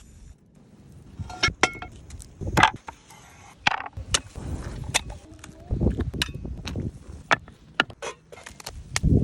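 Cooking utensils and cookware knocking and clinking irregularly, about a dozen sharp strikes, a couple with a short metallic ring.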